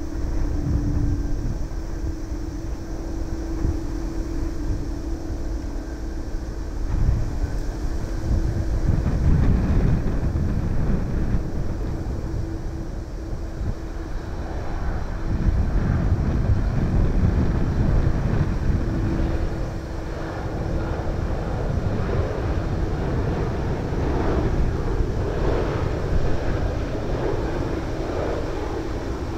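Jet engines of a Boeing twin-engine airliner on final approach with gear down: a steady rumbling drone that grows fuller as the plane nears touchdown. Wind buffets the microphone, and a steady low hum sits underneath.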